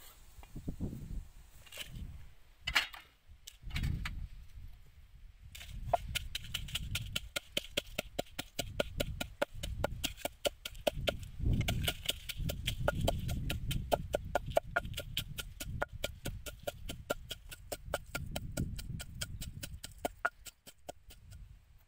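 Wooden pestle pounding garlic and chilies in a wooden mortar: a few scattered knocks at first, then from about six seconds in a long run of quick, steady strokes, several a second, each a sharp knock over a dull thud.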